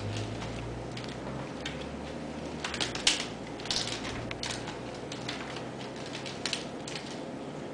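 Ragdoll kittens playing on a hardwood floor around a wicker basket: irregular light clicks and scrabbling of paws and claws, with a cluster of louder clicks about three seconds in.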